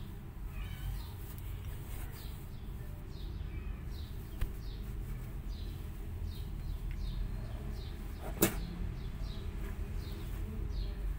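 A small bird chirps over and over in the background, short falling chirps about twice a second, over a low rumble. About eight seconds in, one sharp, loud burst of noise: a cornered feral kitten spitting.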